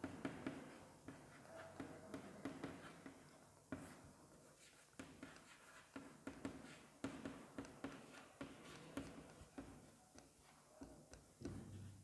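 Chalk writing on a chalkboard: faint quick taps and short scratching strokes as the letters are formed.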